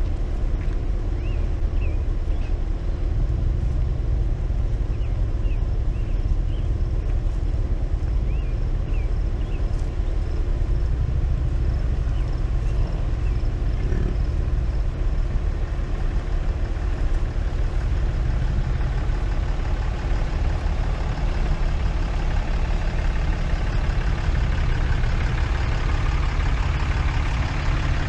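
A vehicle engine idling and creeping along with a steady low rumble, and a bird chirping in short runs during the first ten seconds. A louder rush builds near the end as a pickup truck pulls up alongside.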